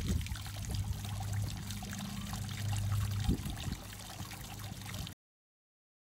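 Water bubbling up and trickling down through a two-tier natural stone boulder bird bath fountain, with a steady low hum under it. The sound cuts off suddenly about five seconds in.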